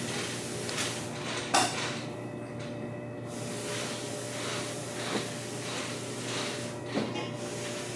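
A steady low hum with four brief knocks or clacks; the loudest comes about one and a half seconds in.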